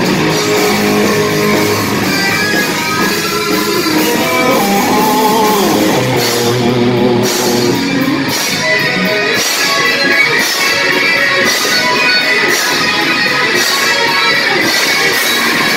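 Live rock band playing loud: two electric guitars, one a Les Paul-style, playing over a drum kit, with wavering, bent lead-guitar notes in the middle.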